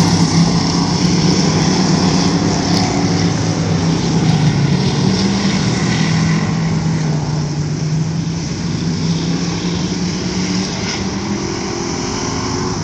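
Dirt-track stock car engines running at speed around the oval, loudest as cars pass close at the start and easing slightly later on.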